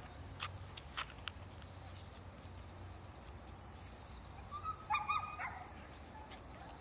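Puppies give a cluster of short, high yelps about five seconds in, over a quiet low background hum, with a few faint ticks near the start.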